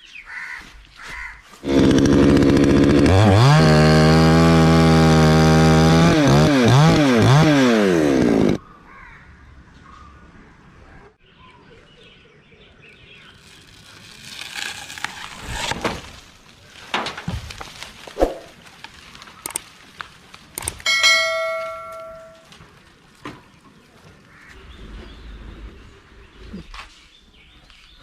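Two-stroke chainsaw running at high revs for about seven seconds, starting about two seconds in. Its pitch swings up and down near the end, then it cuts off abruptly. Later come scattered knocks and a short metallic ring.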